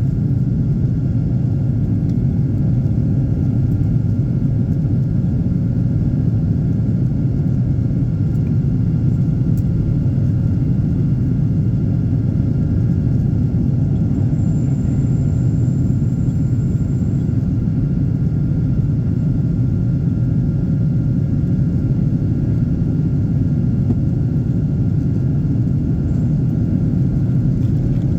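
Steady low rumble of a Boeing 737-900ER's CFM56-7B jet engines at takeoff or climb power, holding level without rising or falling.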